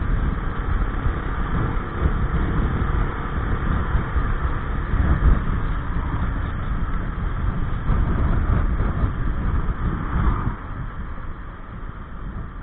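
Gilera Nexus 500 maxi-scooter's single-cylinder engine and drive running on the move, mixed with wind rumble on the mounted camera's microphone. The noise eases about ten seconds in.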